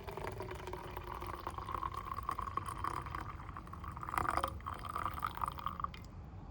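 Water being poured into a container. The pitch of the filling sound rises steadily as the vessel fills, then stops just before the end.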